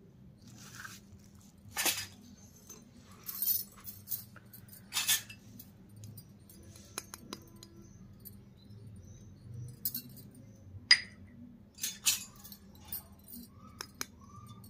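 Miniature stainless-steel cups being unpacked and handled: short crinkles of plastic wrapping and a few light metallic clinks, loudest about eleven seconds in.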